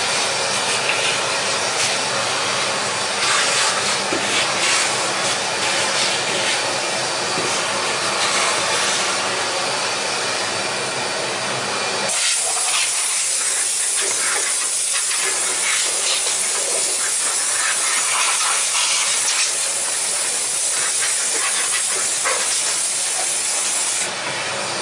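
A workshop vacuum runs steadily, drawing through a hose on the mitre saw's dust port. About halfway through, a compressed-air blow gun hisses steadily as the saw is blown clean, easing off just before the end.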